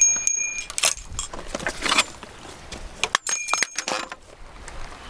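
Small bite bell on a shore-fishing rod tip jingling in several short rings as the rod is worked and the line is tugged.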